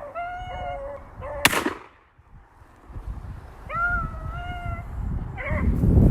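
Beagles baying while running a rabbit: drawn-out high bawls, one in the first second and another about four seconds in. A single gunshot cracks about one and a half seconds in.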